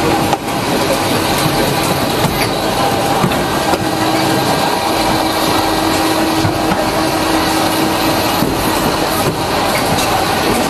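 Industrial machinery running steadily: a continuous mechanical noise with a few steady hums and occasional faint clicks. A higher hum comes in for a few seconds near the middle.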